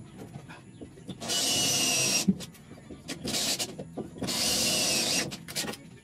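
Cordless drill running in three short bursts, the longest about a second, boring pilot holes into the spot welds of a 1969 Chevrolet C10's sheet-steel inner roof flange. Small clicks come between the bursts.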